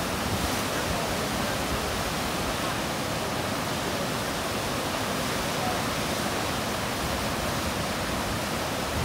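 Steady rush of whitewater from a standing river wave in the Snake River rapids.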